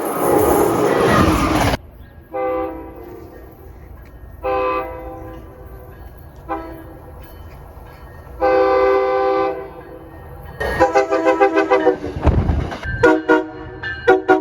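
Train air horn sounding a chord of several notes in separate blasts: short, a little longer, short, then one long blast, followed near the end by a run of rapid choppy toots. It opens with a loud rushing noise that cuts off abruptly about two seconds in.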